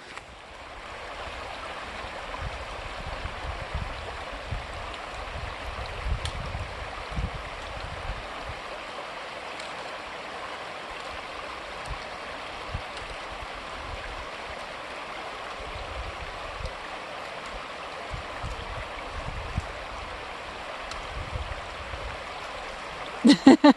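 Steady rush of a mountain creek flowing over rocks and cascades, with irregular low rumbles underneath.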